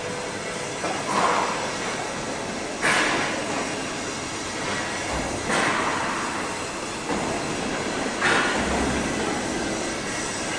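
Steady factory-floor machinery noise in a steel fabrication workshop, with a sharp hissing surge that fades away four times, about every two to three seconds.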